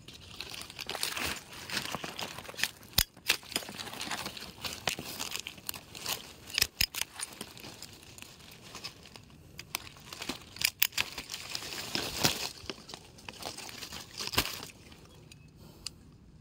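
Dry leaves and twigs rustling and crackling as the brush is disturbed, with several sharp snaps scattered through.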